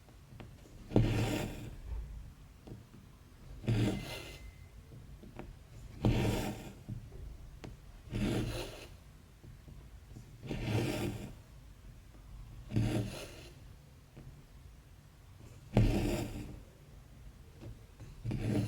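Embroidery floss being pulled through 14-count cross stitch fabric, stitch after stitch: a short rough rustle about every two to three seconds, eight pulls in all.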